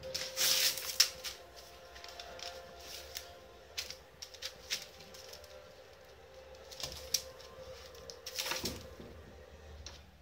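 A cat's claws scrabbling and scratching at a wooden cabinet as it jumps and paws at a dangling string, in scattered clicks and scratches, with a longer rustling scrape about half a second in and another near the end.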